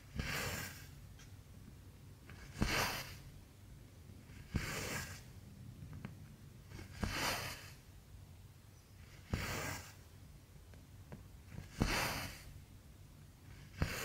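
Cotton embroidery thread being drawn through 11-count cross-stitch fabric, stitch after stitch. Each pull starts with a sharp tick as the needle goes through and follows with a hissing swish of thread. There are seven of them, about every two to two and a half seconds.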